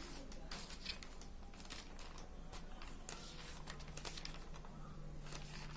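Faint scattered ticks and soft rustles of notebook paper as a kitten paws at the pages, over a low steady hum.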